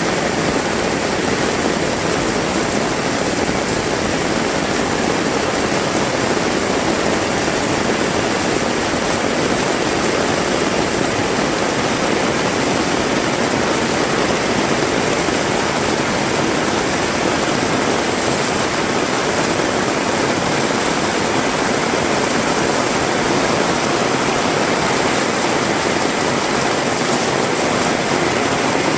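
Heavy rain pouring down steadily, an even rushing hiss without breaks.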